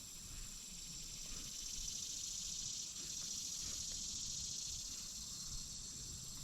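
A steady high-pitched chorus of insects droning in the riverside trees, swelling through the middle and easing off toward the end.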